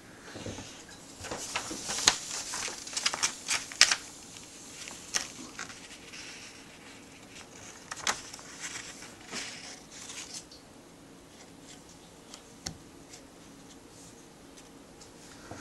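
A sheet of graph paper rustling and crackling as it is handled and fed into a Plustek MobileOffice S420 portable sheet-fed scanner. The crackles are busiest in the first few seconds and die away after about ten seconds.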